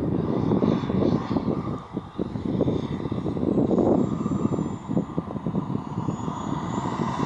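Turbine engine of a Black Horse Viperjet RC model jet running in flight as it approaches, a rushing noise with a thin high whine that comes in during the second half and rises slightly toward the end.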